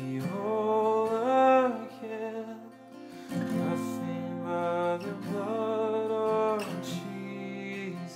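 A man singing a slow hymn to his own acoustic guitar: two sung phrases, one near the start and one about five seconds in, with the guitar chords ringing on between them.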